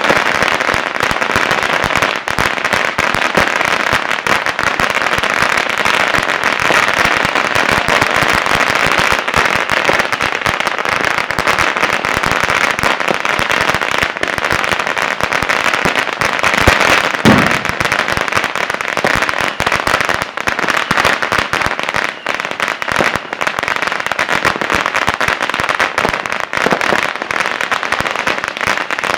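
Many firecrackers popping at once in a dense, unbroken crackle, with a louder bang about seventeen seconds in.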